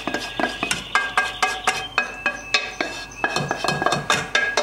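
A spoon stirring stew in a stainless steel pot, knocking and scraping against the metal about four times a second, and the pot rings after each knock.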